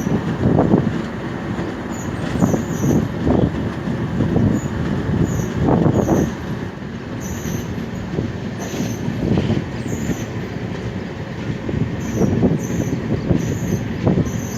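Rumble and clatter of a moving LHB passenger train, its wheels running over the track with uneven surges of louder wheel noise every second or so and short, repeated high-pitched chirps.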